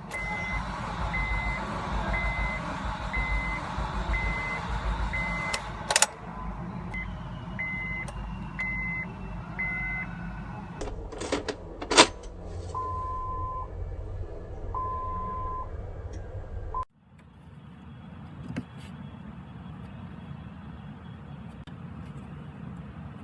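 Car warning chimes: short high beeps about one a second, then two longer, lower beeps, over a steady low rumble, from a first-generation Acura MDX that will not start. Sharp clicks come about six seconds in and again around eleven to twelve seconds, and the sound cuts off abruptly about seventeen seconds in, leaving a fainter hum.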